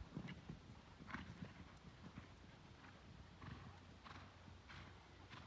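Faint hoofbeats of a cantering horse on a sand arena footing, a run of soft dull thuds that grow fainter after the first couple of seconds as the horse moves away.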